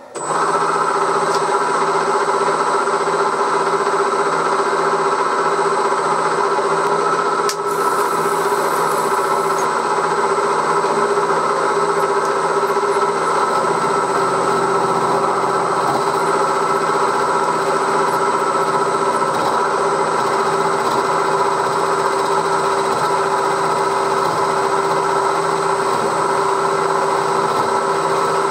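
1938 Bridgeport M-head milling machine running steadily, its end mill taking a roughing cut in the metal of a cylinder block, a continuous whine of several steady tones. A brief click about seven and a half seconds in.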